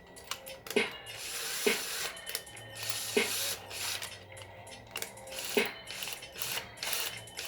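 Ratcheting mechanical clicks from a cordless drill/driver, coming irregularly about a second apart, some in quick clusters, with stretches of hiss between.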